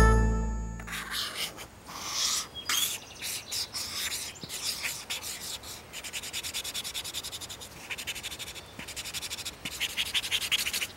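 Crayon scratching on paper in short back-and-forth strokes, coming in quick runs of several strokes a second. The last low note of a piano piece dies away in the first second.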